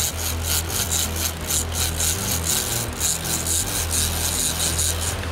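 Large conventional fishing reel being cranked hard, winding line in against a hooked shark, with a rhythmic rasping of about four strokes a second that stops near the end. The reel's clicker is still engaged.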